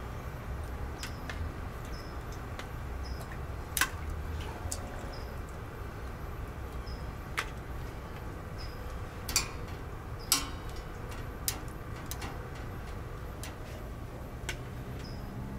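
Half a dozen sharp clicks and knocks at irregular intervals over a low steady hum, with faint short high chirps in between.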